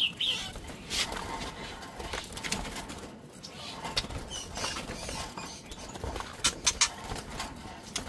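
Young white-rumped shamas fluttering and flapping their wings inside a wire cage as a hand reaches in to catch one, with scattered clicks and rattles of the cage wire; a short cluster of sharp clicks comes about two-thirds of the way through. A couple of short high chirps sound at the start.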